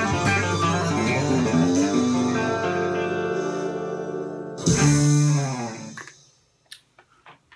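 The close of an instrumental country tune: a Telecaster-style electric guitar plays a last run over the backing. A final chord strikes about four and a half seconds in, rings and dies away by about six seconds, and a few faint clicks follow.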